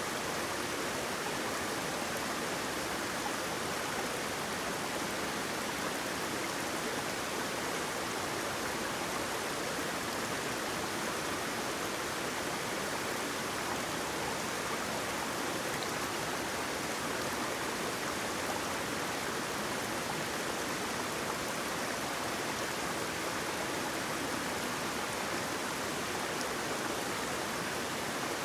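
Waterfall water rushing in a steady, even roar with no breaks or changes.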